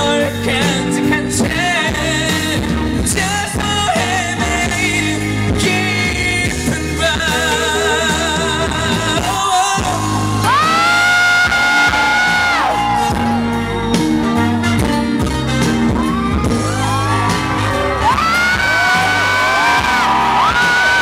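Live pop ballad played by a band with a full rhythm section; the lead holds long notes that bend up and sustain, about halfway through and again near the end.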